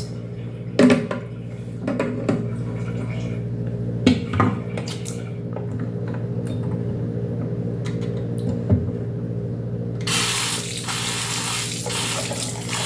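Washing machine with a steady electric motor hum and a few knocks and clunks. About ten seconds in, water starts rushing in.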